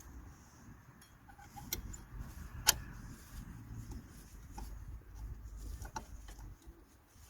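Metal brake parts being handled while drum brake shoes are fitted: a few sharp metallic clicks and knocks, the loudest about a third of the way in, over a low rumble.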